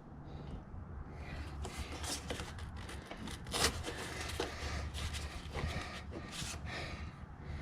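Handling noises of ladder mounting hardware being positioned: scraping and rubbing with scattered light clicks and knocks, over a low steady hum.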